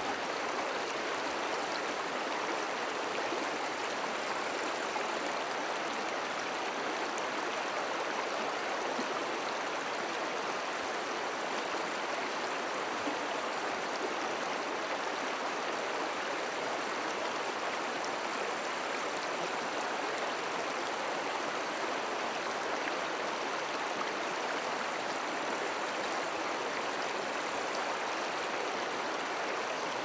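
Mountain river rushing: a steady, even rush of flowing water with no breaks or changes.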